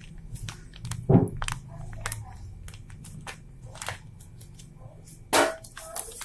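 Plastic Mang Tomas sauce bottle being squeezed and handled over a glass bowl: scattered clicks and knocks, with a loud thump about a second in and a sharper, louder crack a little past five seconds.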